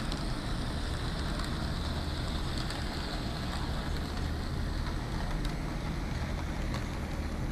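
Bachmann HO scale model steam train, a 2-8-0 locomotive with passenger cars, running steadily around a plastic-roadbed track oval: a constant electric motor whir over the low rumble of wheels on track, with a few faint clicks.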